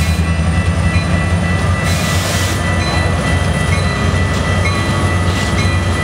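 CN SD75I diesel locomotive passing close by, its EMD 16-cylinder two-stroke engine running with a deep, steady rumble.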